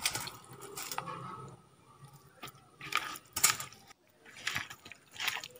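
Hands mixing raw chicken pieces in a wet spice paste, making a series of irregular squelches and rustles.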